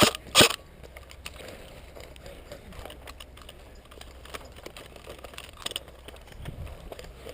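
An airsoft rifle fires a single sharp shot about half a second in. Quieter rustling and small clicks follow, and there is a weaker sharp pop near the end.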